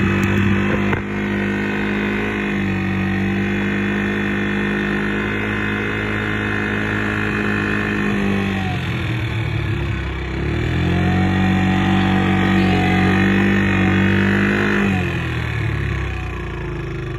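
Quad (ATV) engine running at a steady pitch. It eases off about halfway through, picks back up about two seconds later, and eases off again near the end.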